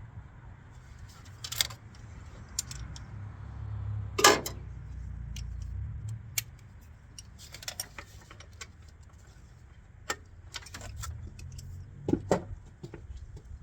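Metal hand tools and sockets clinking and clattering in a string of sharp, irregular clinks. The loudest clank comes about four seconds in, over a low steady rumble.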